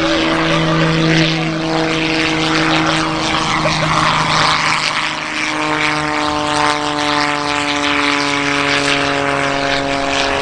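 Propeller-driven airplane's piston engine and propeller droning steadily overhead, with a second set of tones coming in about halfway that falls slightly in pitch as it passes.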